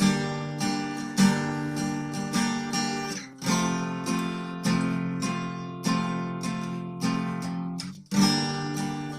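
Acoustic guitar strummed in a steady rhythm, the chords ringing between strokes, as the introduction to a song. The playing breaks off briefly twice, about three seconds in and near the end, then starts again.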